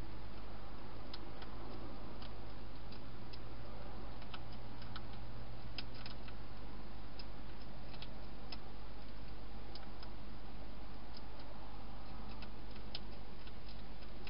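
Hedgehog chewing dry food, giving scattered, irregular small clicks, over a steady hiss and low hum from the camera's microphone.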